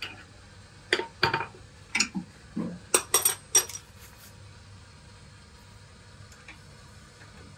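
Hand wrenches clinking and clanking against the steel sway bar end link and suspension parts while the link's nut is worked. There are about eight sharp, ringing metal knocks in quick, uneven succession over roughly three seconds.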